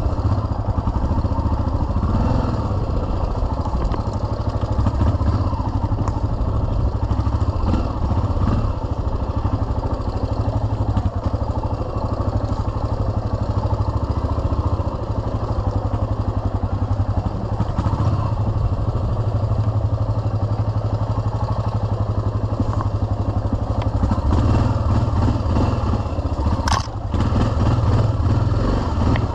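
Yamaha XT 600's single-cylinder four-stroke engine running under changing throttle as the bike is ridden along a rough forest trail, with one sharp knock near the end.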